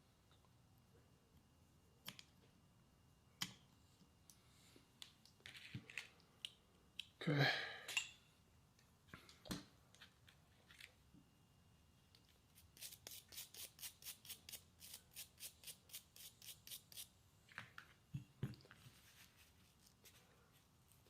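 Small parts and hand tools being handled at a workbench: scattered sharp clicks, then a run of even, rapid ratcheting clicks, about five a second for some four seconds, during fitting of a fuel line and inline filter.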